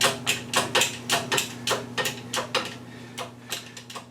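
Rapid metallic ratcheting clicks, about four a second, thinning out and fading in the second half, over a steady low electrical hum.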